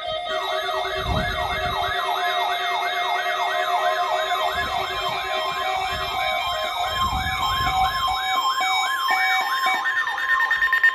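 Emergency alert test alarm: an electronic siren sweeping rapidly up and down, nearly three times a second, over several steady alert tones. It turns into a louder rapid stutter right at the end.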